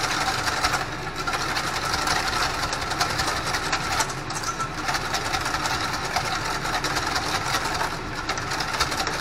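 Wire whisk beating a wet egg yolk and mustard mixture in a stainless steel bowl: a fast, steady rattle of the wires clicking and scraping against the metal.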